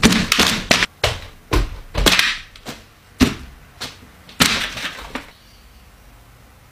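Lettuce salad in a bowl being pecked at face-first and grabbed by hand: a run of about ten sharp knocks and short rustles over some five seconds, then quiet.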